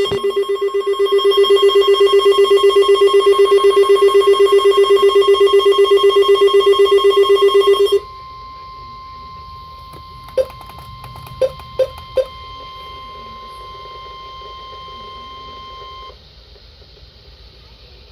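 NOAA Weather Radio receivers alarming for the weekly test. A loud, rapidly pulsing alarm beep sounds over the steady warning-alarm tone and stops about eight seconds in. The steady tone carries on alone, with four short blips a couple of seconds later, and cuts off about sixteen seconds in, leaving radio hiss.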